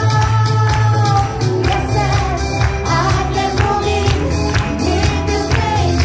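A woman singing into a microphone over loud amplified pop backing music with a steady beat, with the audience clapping along.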